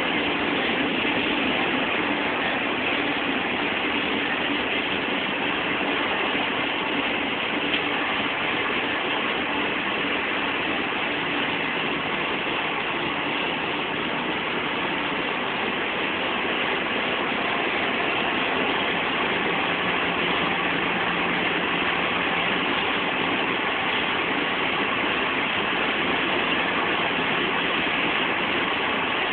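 Steady road and engine noise inside a car's cabin at highway speed, with a faint hum that shifts lower partway through.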